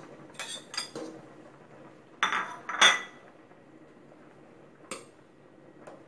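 A plate and a metal ladle clinking against the rim of an enamel cooking pot: about five sharp clinks, the loudest two close together about two seconds in, and a last one near the end.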